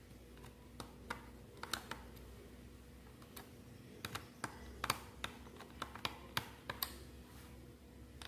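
Small screwdriver clicking and tapping against the screws and plastic casing of an old TV set-top box while the screws are undone: a string of light, irregular clicks.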